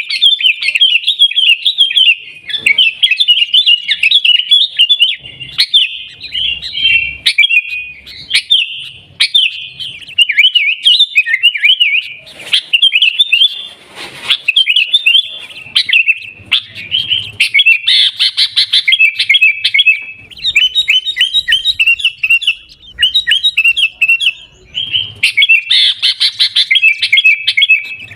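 Sooty-headed bulbul (kutilang) singing in long runs of rapid, chattering chirps, broken by a few short pauses.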